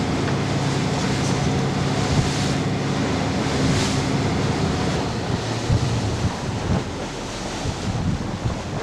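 Small boat's outboard motor running steadily under way, with wind buffeting the microphone and water rushing past the hull. The engine hum gets quieter in the second half.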